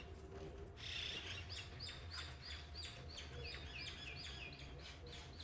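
Bird chirping: a quick run of repeated short, high chirps, about three a second, starting about a second in, over a low steady hum.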